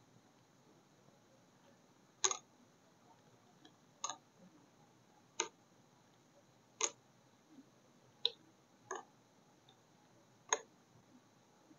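Seven sharp single clicks or taps, a second or two apart and not quite evenly spaced, over a faint hiss.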